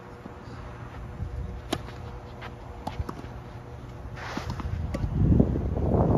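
Tennis ball pops off rackets and the court in a rally, several sharp hits roughly a second apart. A brief scuffing hiss of shoes on the court comes about four seconds in. From about five seconds a louder low rumble of wind on the microphone takes over.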